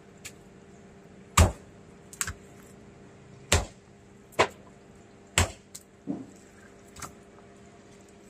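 Heavy knife chopping through catla fish on a wooden log block: about seven sharp knocks spaced roughly a second apart, the first the loudest.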